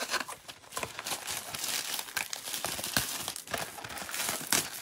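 Plastic wrap crinkling and tearing in a dense run of small crackles as a sealed trading-card box is unwrapped by hand.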